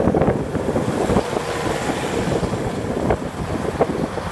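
Case SR220 skid steer's four-cylinder diesel engine running while the machine is being operated, with wind buffeting the microphone.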